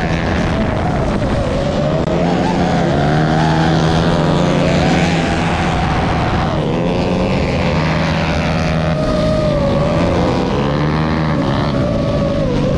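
Small racing motorcycle engines revving hard and an FPV drone's motors whining close by, several pitches rising and falling as throttles open and close.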